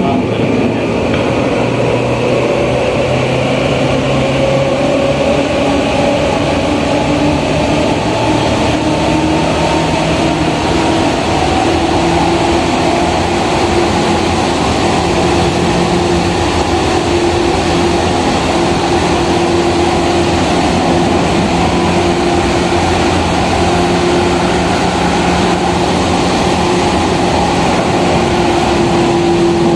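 Tokyu 8500 series electric train running through a subway tunnel, heard from inside the car. The traction motor whine rises in pitch over the first ten seconds or so as the train picks up speed, then holds steady over the constant rumble of wheels and tunnel.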